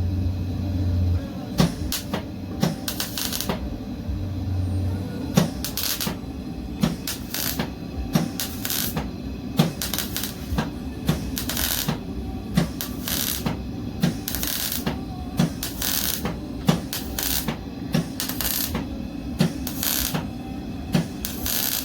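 MIG welder stitch-welding in short crackling spurts, about one a second, over the welder's steady low hum.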